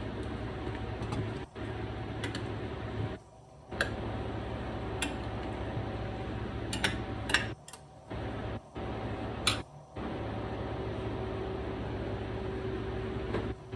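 Chicken pieces frying in a skillet: a steady sizzle broken by several sharp pops and clicks as the pieces are turned. The sound cuts out briefly a few times.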